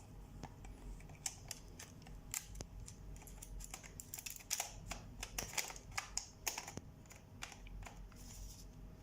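Irregular small clicks and taps of a Nikon D5600 camera body and lens being handled as someone tries to fit the lens onto the mount.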